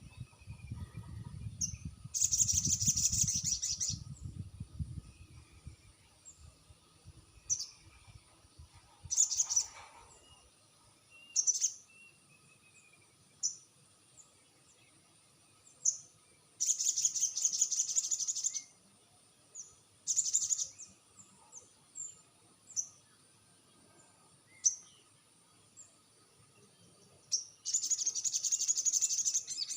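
Sogon bird calls: short high chirps every second or so, broken three times by a fast rattling chatter that lasts about two seconds. This is the lure call played to coax a silent sogon into answering.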